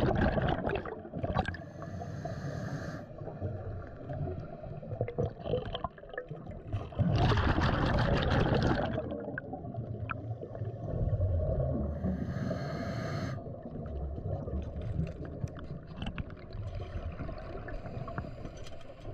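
Scuba diver breathing through a regulator underwater: two loud gurgling bursts of exhaled bubbles, one at the start and one about seven seconds in, each followed a few seconds later by a fainter hiss of inhalation through the regulator, all over a constant low underwater rumble.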